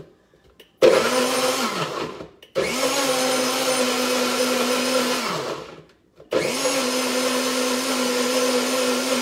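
NutriBullet-style personal blender blending a drink in three runs: a short burst about a second in, then two longer runs of about three seconds each. The motor hums steadily and winds down in pitch as each run stops.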